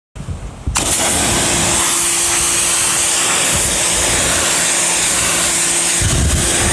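Pressure washer spraying a roof: a loud, steady hiss of the water jet with a steady hum under it, starting suddenly under a second in.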